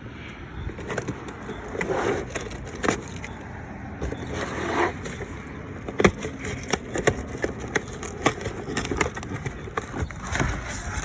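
Packaging being opened and handled: a string of scattered clicks and taps with scraping and crinkling between them.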